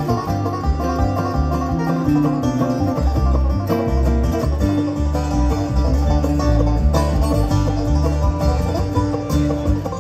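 A bluegrass band playing live, with a banjo picking out front over bass and guitar.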